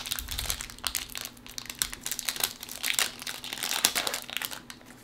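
Plastic wrapper of a trading card pack crinkling irregularly as it is handled and torn open by hand.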